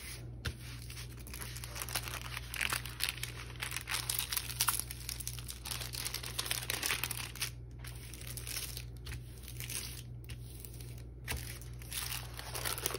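Clear plastic cover film on a diamond painting canvas crinkling and rustling unevenly as hands smooth and rub across it.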